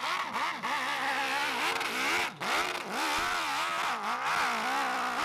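Hill-climb motorcycle engine revving hard as it climbs a steep slope. Its pitch rises and falls quickly as the throttle is worked, with a brief drop about two and a half seconds in.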